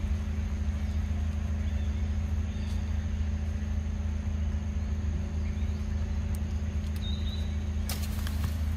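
Outdoor ambience dominated by a steady low hum, with a few faint, brief high chirps. Near the end comes a short burst of rustling.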